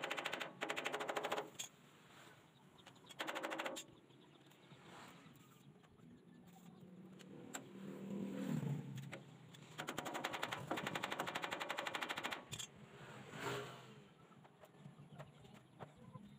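A power tool working the metal sidecar frame, heard in bursts of a fast, even rattle. One burst is at the start, a short one comes a few seconds in, and a longer one of about two seconds follows past the middle.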